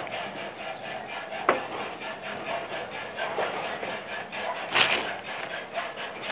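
A single sharp knock about a second and a half in and a short scraping rustle near the end, over a steady faint hum.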